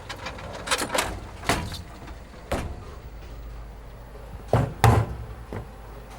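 A series of sharp knocks and bangs, irregularly spaced, the loudest two close together about four and a half seconds in, over a steady low hum.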